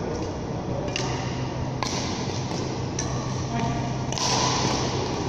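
Badminton rackets striking a shuttlecock during a rally: sharp single hits about a second apart, over a steady low hum of the hall's ventilation. Near the end a louder rush of noise comes in.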